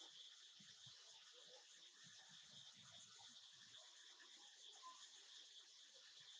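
Near silence, with faint, steady high-pitched insect chirring.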